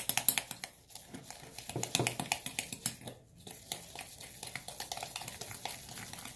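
A spatula stirring and scraping a wet sand mixture in a bowl: a fast, uneven run of small gritty clicks and scrapes.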